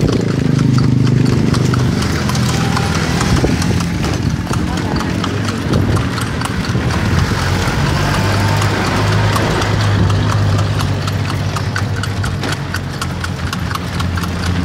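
Horse's hooves clip-clopping steadily on a paved road as it pulls a kalesa, a horse-drawn carriage, heard from inside the carriage over a low steady rumble.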